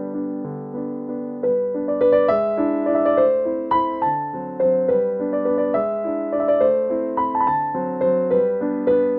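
Background piano music: a melody of single notes played over low chords, each note struck and left to fade.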